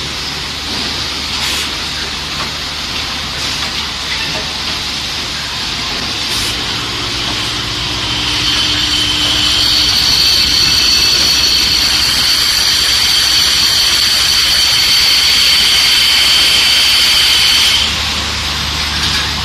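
Automatic sticky-hook assembly machine running: a steady mechanical hum and hiss with a few faint clicks, joined about halfway through by a high, steady whine that stops shortly before the end.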